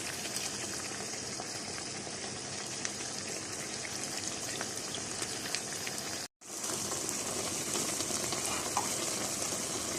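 Chicken pieces frying in oil in a pan, just seasoned with fish sauce: a steady sizzle with small crackles. It breaks off for a split second about six seconds in.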